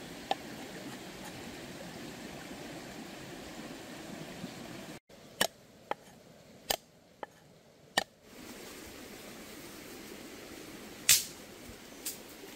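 A cleaver chopping on a wooden chopping board: a handful of sharp knocks, about one every half second to second, in the middle, and one louder knock near the end, over a steady background hiss.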